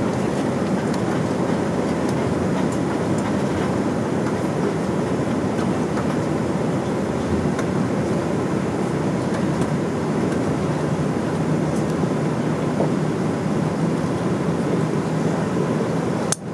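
Cabin noise inside an Airbus A380 taxiing after landing: a steady low rumble of the engines and the rolling aircraft, with no speech. It breaks off with a click near the end.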